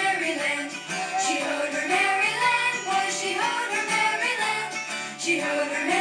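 Recorded music playing, a song with a singing voice over a continuous melody.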